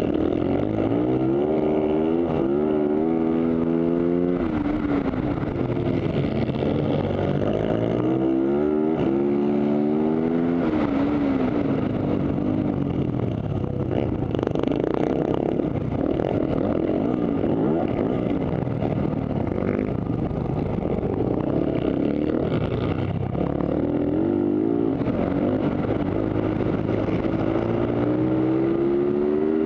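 Racing supermoto motorcycle engine heard from a camera mounted on the bike, revving up hard and dropping back again and again as it accelerates through the gears out of corners and shuts off for braking. The revs climb in long rising sweeps near the start, in the middle and again near the end, with rougher, lower running between them.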